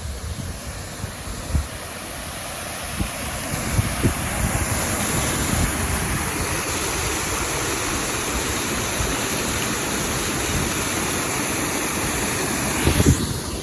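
Rushing water of a small river waterfall, a steady hiss that grows louder over the first few seconds as it is approached, then holds. Low wind rumble buffets the microphone underneath.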